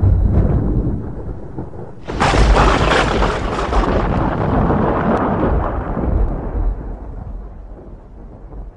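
A low rumble, then about two seconds in a sudden loud crash that rolls on and slowly dies away over several seconds.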